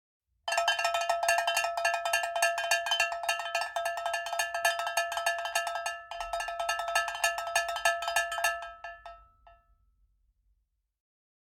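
Metallic, bell-like percussion struck in a fast, dense rattle over a few steady ringing tones. It starts suddenly, breaks off briefly about six seconds in, then thins out and dies away over the last couple of seconds.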